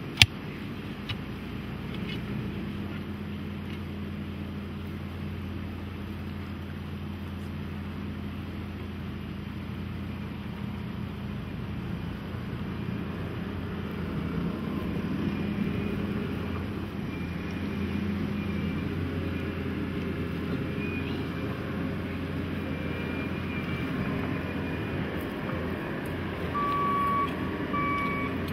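A vehicle engine running steadily, growing somewhat louder about halfway through. A single sharp click comes just after the start, and near the end there is a string of short reversing beeps, about one a second.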